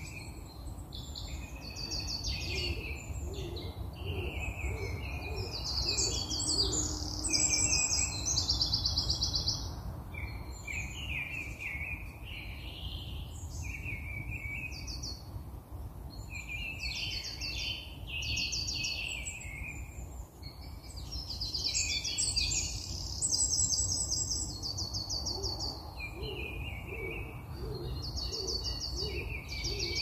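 Wild birds calling and singing all through, a dense mix of chirps and fast trills. Twice, once early and once near the end, a run of low notes repeats evenly about twice a second.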